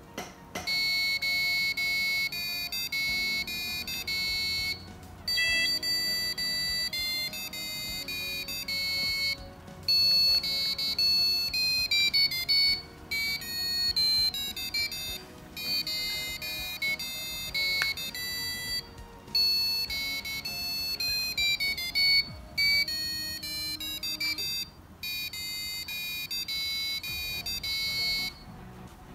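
Piezo buzzer on an Arduino countdown timer playing a high-pitched electronic tune of quick notes when the count reaches zero. It plays in phrases of a few seconds, with short gaps between them.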